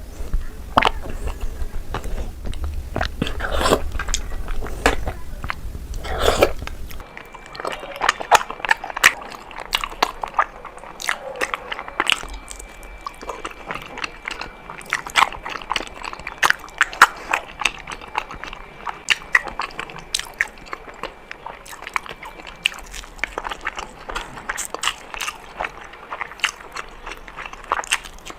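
Close-miked eating sounds of Indian sweets being bitten and chewed: many quick, irregular clicks and smacks of the mouth. A low background hum drops out about seven seconds in.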